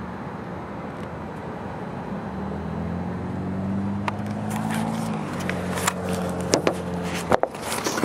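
A motor vehicle's engine running nearby over steady outdoor background noise, with its hum coming up a couple of seconds in and dropping away about seven seconds in. Through the second half come clicks and knocks of camera handling noise as the camcorder is lifted off the car roof, loudest near the end.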